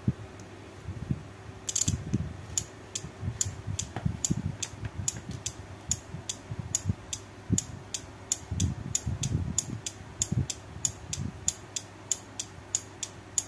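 A 12 V 30 A six-pin automotive relay clicking on and off as a timer/flip-flop module switches it. The clicks start about two seconds in and come evenly, about two to three a second, with a few low knocks in between.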